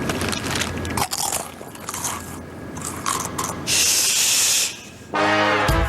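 Crunchy Cheetos cheese snacks being bitten and crunched, with scattered sharp crackles. A loud hissing whoosh comes about four seconds in, and music starts near the end.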